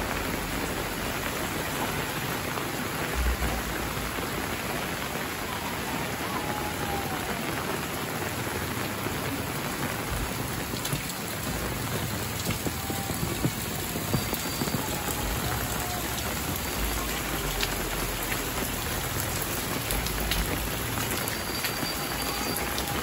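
Steady rain falling on corrugated metal roofs and a wet concrete lane, with scattered sharp drip ticks from about halfway on and a few low thumps.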